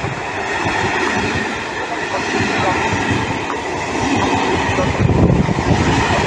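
Train running on the track, a steady rumble of wheels on rails that grows louder about five seconds in.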